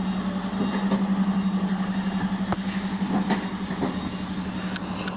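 Heavy truck's diesel engine running steadily on a climb, heard from the cab with a low steady drone. Several sharp knocks and rattles start about halfway through, with two sharp clicks near the end.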